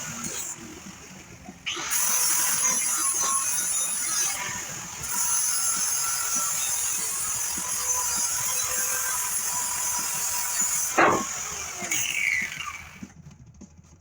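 Grinder grinding down the steel truck frame: a steady, harsh hiss that breaks off briefly about half a second in, resumes, and winds down with a falling whine about a second before the end.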